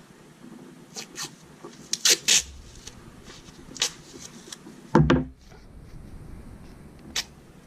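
Small objects being handled and set down: a series of sharp clicks and knocks, with a heavier thump about five seconds in and one more click near the end.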